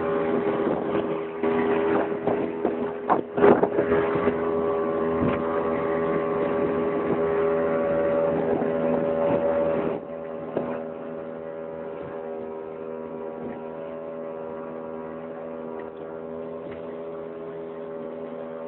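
A motorboat's engine running steadily under way, with wind noise and a few thumps about three to four seconds in. The engine sound drops noticeably in level about ten seconds in and then runs on evenly.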